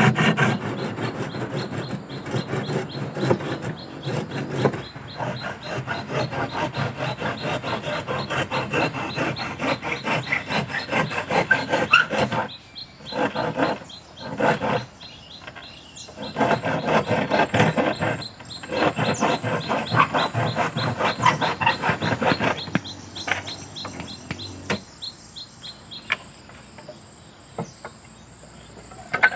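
Hand saw cutting through a wooden door panel in steady back-and-forth rasping strokes, with a few short breaks, stopping about 22 seconds in. Insects chirp in a regular pulse, heard more plainly once the sawing stops.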